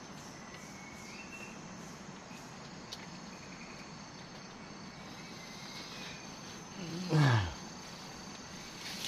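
Night jungle ambience: a steady drone of insects with a few faint chirps in the first seconds. About seven seconds in, a loud, short, deep sound slides down in pitch.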